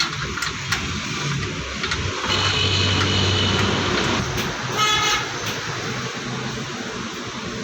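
Road traffic with vehicle horns honking: one horn held for about a second a couple of seconds in, and a shorter toot about five seconds in, over steady traffic noise.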